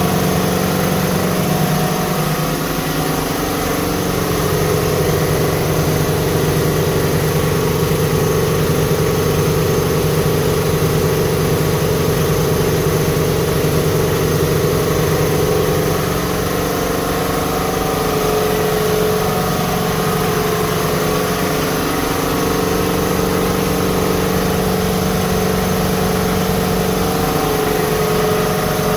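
Two piston air compressors running together, a steady mechanical hum with a fast pulsing beat, pumping up the air system.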